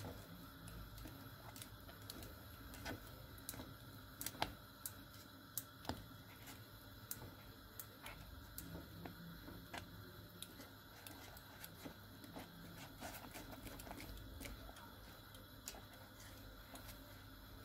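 Faint, irregular clicks and taps of a whisk knocking and scraping against the sides of a stainless steel pot while stirring thick cooked pastry cream.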